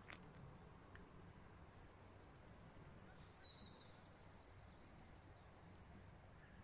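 Near silence with faint birdsong: a few scattered high chirps and one short, rapid trill of evenly repeated notes about three and a half seconds in.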